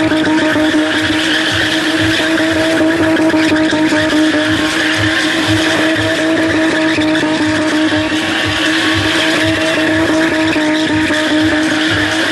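A car spinning in continuous circles, its engine held at steady high revs while the rear tyres screech and smoke against the tarmac.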